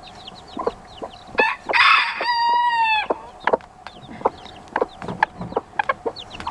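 Baby chicks peeping steadily, with hens clucking. About a second and a half in, a rooster crows once: it starts rough and ends in a held note that lasts under a second.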